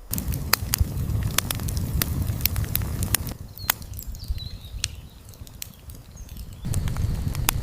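Campfire crackling, with sharp pops and snaps at irregular intervals over a low rumble that drops away for a few seconds in the middle.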